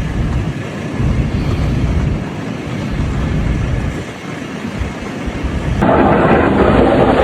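Storm wind buffeting the microphone in uneven, rumbling gusts; about six seconds in it switches abruptly to a louder, steady rushing noise.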